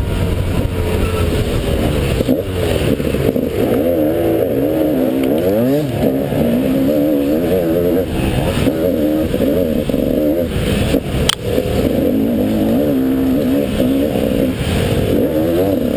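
Off-road dirt bike engine ridden hard, heard from the rider's helmet, its pitch constantly rising and falling as the throttle is worked through the turns. A single sharp knock about eleven seconds in.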